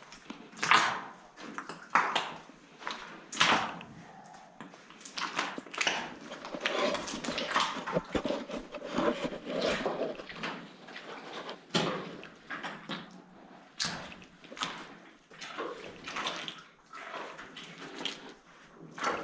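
Boots wading through ankle-deep oil sludge, sloshing with each step at an uneven pace of about one step a second.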